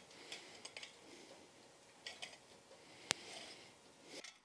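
Faint clinks and scrapes of steel on steel as a bar is bent between a handheld bending fork and a bending fork standing in the anvil, with one sharp metallic click about three seconds in.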